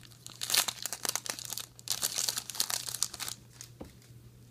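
Trading-card pack wrapper crinkling and rustling as it is handled and opened, in irregular crackly bursts for about three seconds, then quieter with a single click near the end.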